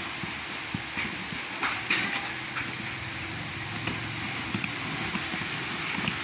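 Scissors cutting through packing tape on a cardboard box: a series of short crackles and snips over a steady background hum.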